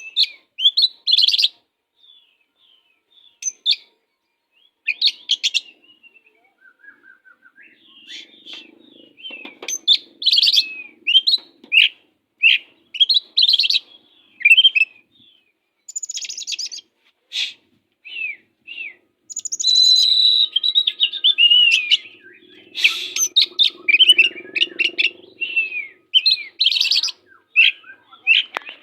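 Oriental magpie-robin (kacer) singing a loud, varied song of short whistled notes, falling slurs and rapid chattering phrases, delivered in bursts with brief pauses.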